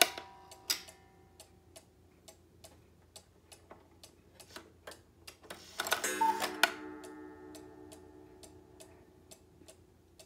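Cuckoo clock's movement ticking steadily. About six seconds in, a hand touching the clock makes a brief rattle, and several ringing tones fade out after it.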